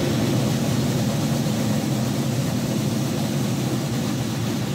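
Several side drums playing a loud, steady, continuous roll together, easing slightly near the end.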